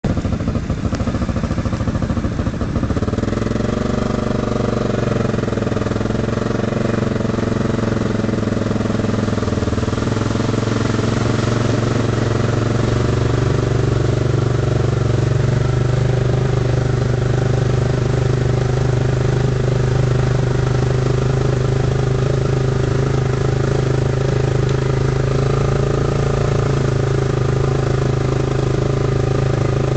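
Quad bike (ATV) engine running close up while driving through a shallow river; its pitch wavers up and down a few seconds in, then holds steady.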